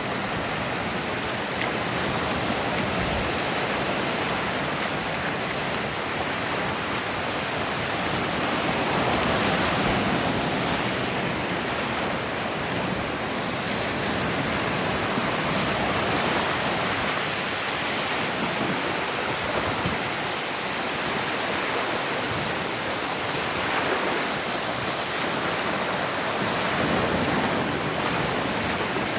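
Ocean waves washing onto a beach: a steady rush of surf that swells and eases every several seconds.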